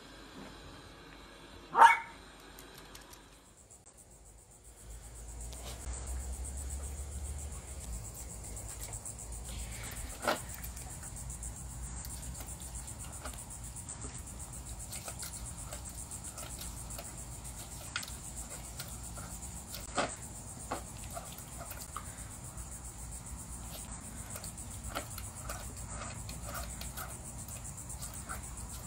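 A dachshund puppy barks once, sharply, about two seconds in. After that come small irregular ticks and splashes of a puppy lapping water from a bowl, over the steady high chirring of insects.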